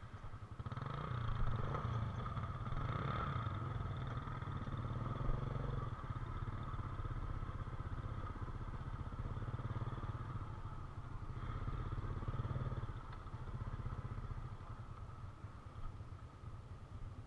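Small engine running with a steady low hum and a faint whine, building up about a second in and easing off near the end.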